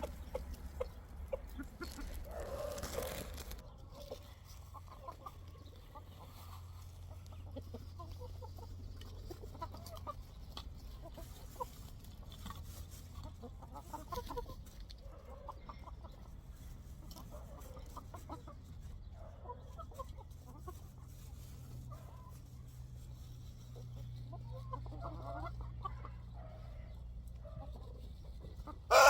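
Backyard chickens clucking quietly off and on, many short scattered calls, over a low steady rumble.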